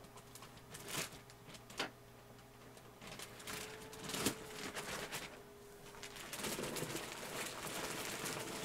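Plastic wrapping crinkling and rustling as a wrapped computer tower is handled inside a cardboard box, with a few sharp knocks about one, two and four seconds in.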